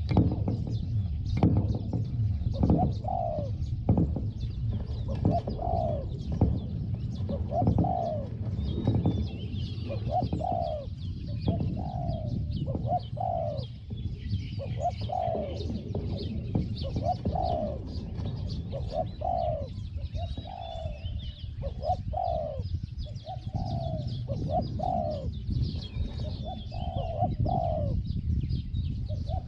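Spotted doves cooing repeatedly in short runs of notes about every second, over a steady low rumble, with small birds chirping faintly in the background.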